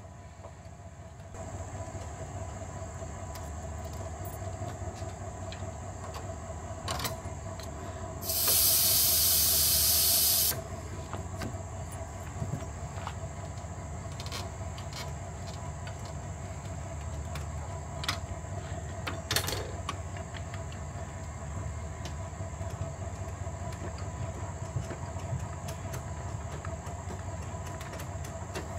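A trailer's crank tongue jack being wound by hand, with faint steady ticking and grinding. About eight seconds in, air hisses out of a valve for roughly two seconds, then cuts off.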